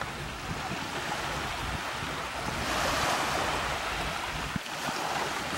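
Wind buffeting the microphone over lapping sea water, with a louder swell of washing noise about three seconds in.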